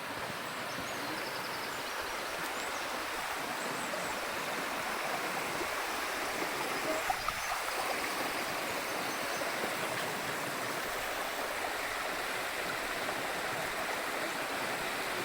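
Clough stream water rushing steadily.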